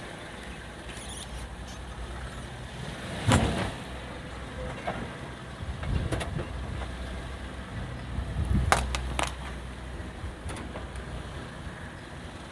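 A car engine idling with a steady low rumble. A few short knocks and clicks stand out over it, the loudest about three seconds in and a cluster of them near nine seconds.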